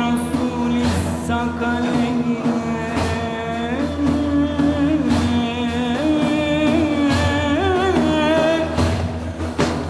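Song with a solo voice singing wavering, ornamented lines over steady low accompaniment and a beat.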